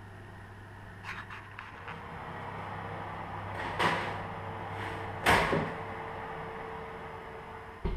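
A built-in Bosch oven's door is opened and a metal baking tray is slid onto the oven rack, clattering twice; the second clatter, about five seconds in, is the loudest. The door shuts with a short knock at the end, over a steady low hum.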